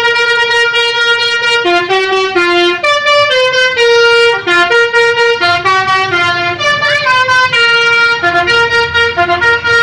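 Tour bus's basuri telolet horn playing a tune: a loud run of held, reedy notes stepping up and down in pitch.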